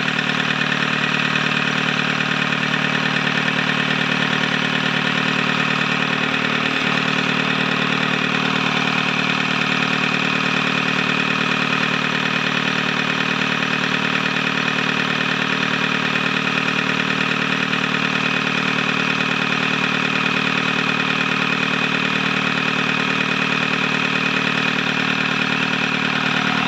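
Yanmar 4T88 four-cylinder diesel engine running steadily at a constant idle.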